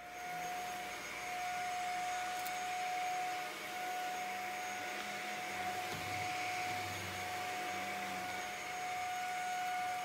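Shark Apex corded stick vacuum switching on at the start and running steadily with a high whine as it is pushed over a rug.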